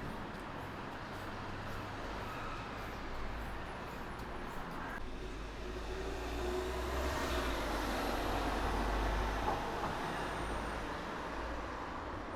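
Street traffic: a steady low rumble of road vehicles that swells as a heavy vehicle passes in the second half, then eases off.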